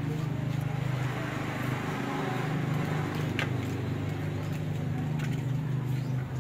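A steady low mechanical hum throughout, with a few faint clicks and scrapes from puppies licking and nosing at a plastic food plate.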